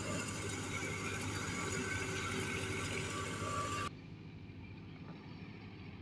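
Tractor-driven wheat thresher and its tractor engine running steadily, heard from across the field. About four seconds in the sound drops abruptly to a fainter, duller hum.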